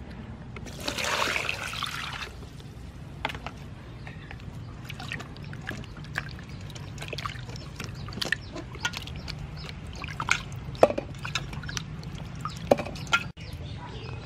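Water poured into a stainless steel bowl about a second in, then hands washing peeled carrots, potatoes and an onion in it: small splashes, with the vegetables knocking against the bowl now and then.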